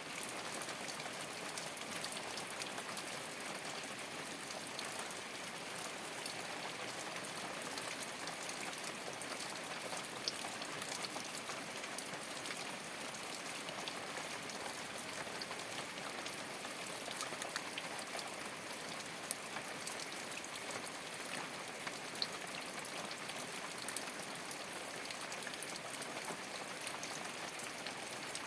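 Rain falling steadily on a thatched straw roof: a dense, even patter of drops with scattered louder ticks.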